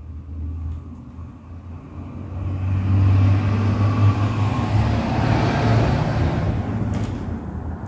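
A motor vehicle passing by: engine hum and road noise swell over a few seconds and fade toward the end. There is a short click about seven seconds in.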